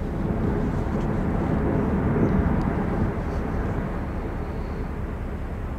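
Low rolling rumble of ice calving from the Meares Glacier, a tidewater glacier. It swells over the first two to three seconds and then slowly fades.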